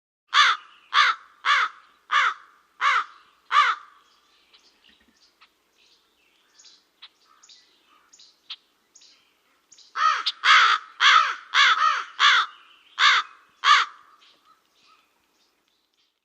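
A crow cawing in two runs of harsh, repeated caws: about six at the start and about eight more from about ten seconds in, with faint calls and clicks between.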